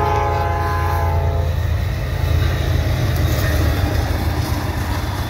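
Norfolk Southern diesel locomotives passing, the lead unit's horn blowing a chord that cuts off about a second and a half in, over the steady low rumble of the engines.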